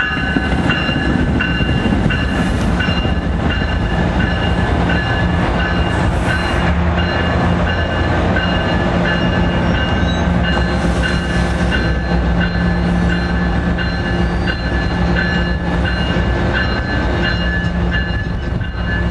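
NJ Transit MultiLevel double-deck passenger coaches running past on the adjacent track: a loud, steady rolling rumble with a steady high-pitched whine over it.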